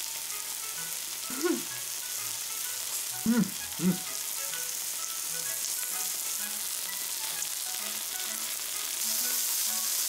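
Meat sizzling steadily on a yakiniku grill, a little louder about nine seconds in, with faint background music. Three short hums from the eater's voice break in, one about a second and a half in and two close together near four seconds; these are the loudest sounds.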